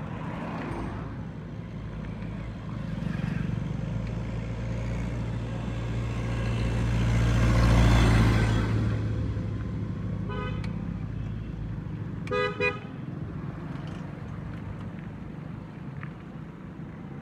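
A motor vehicle passing close, its engine and road noise swelling to a peak about halfway through and then fading. A vehicle horn beeps once briefly, then twice in quick succession about two seconds later.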